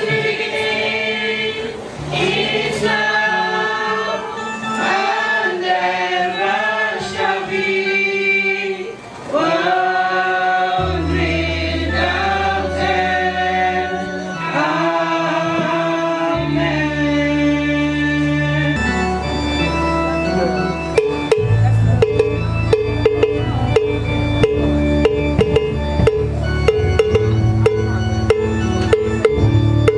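Choir singing a hymn over low sustained bass notes; about two-thirds of the way through, drums and percussion come in with a steady beat.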